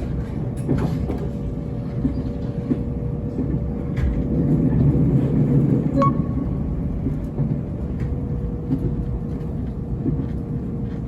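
Nankai Electric Railway train running, a steady low rumble with a constant hum and occasional faint clicks, a little louder for a couple of seconds midway.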